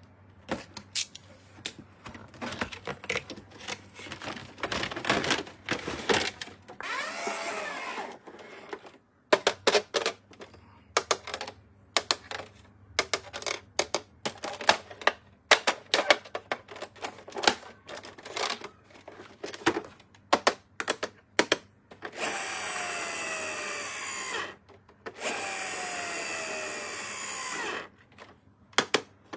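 Toy packaging being handled and opened by hand: sharp clicks, taps and crinkles. Near the end come two longer, steady noisy sounds of about two and a half seconds each, with a faintly falling pitch.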